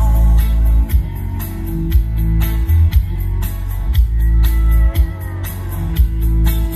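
Line-dance music played over a stage sound system: guitar with a steady drum beat.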